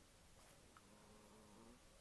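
Hens clucking faintly, a low drawn-out call in the second half, with a faint click shortly before it.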